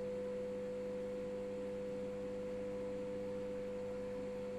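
De'Longhi microwave oven running with a steady hum near the end of its cooking time, with no kernels heard popping.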